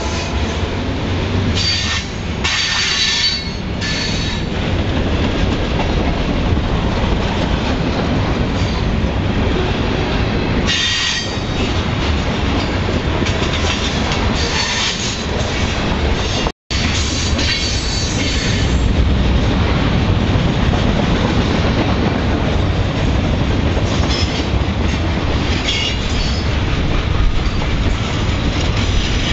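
A freight train led by EMD GP38-2 diesel locomotives runs past with a steady heavy rumble of engines and rolling cars. Wheels squeal in repeated short spells as they round curves. A horn note dies away at the very start, and the sound cuts out for an instant a little past halfway.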